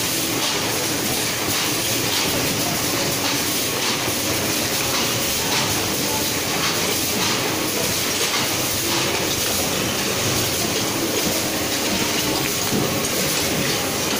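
Automatic tea-packing line machinery running, including a film overwrapping machine and box conveyors, making a steady, dense mechanical clatter.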